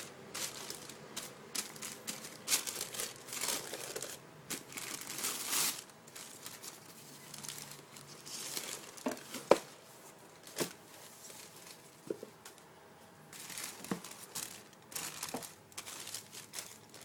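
Plastic shoe packaging crinkling and rustling as it is handled, in bursts during the first six seconds, then quieter handling with a few sharp taps and knocks.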